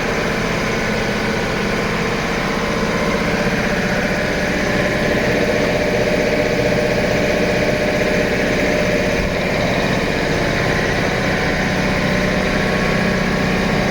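A 2017 Maruti Swift VDI's 1.3-litre diesel engine idling, a steady, even hum.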